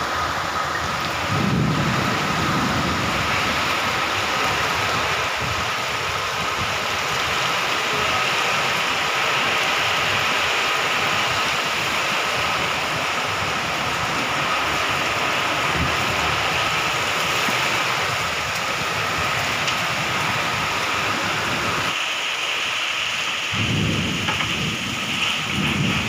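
Heavy tropical rainstorm: a downpour hissing steadily, with low rumbles about two seconds in and again near the end.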